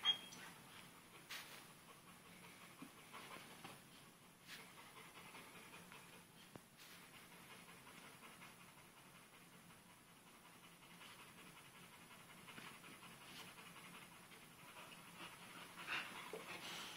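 Pitbull puppy panting faintly while it chews and tugs at a sock, with light scuffles and a louder burst of sound about a second before the end.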